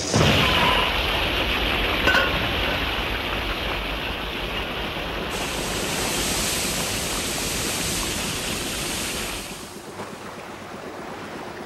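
A high-pressure jet of water rushing and hissing out of a port in the bathysphere's steel hatch: sea water trapped inside at deep-sea pressure being released. It starts suddenly and drops away near the end.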